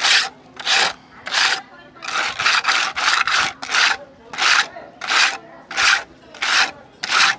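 Hand tool scraping across a rough textured wall coating in repeated even strokes, about one and a half a second, with a quicker run of strokes around two to four seconds in.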